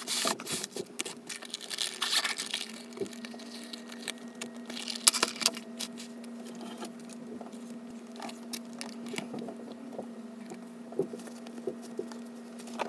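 Hands handling things on a desk: plastic wrapping rustling and crinkling, with scattered small clicks and taps as items are moved and set down. A faint steady hum comes in about three seconds in.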